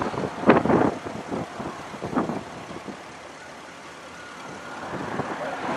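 Wind buffeting the microphone in gusts, strongest about half a second in and again around two seconds, then easing to a steadier rush before picking up near the end.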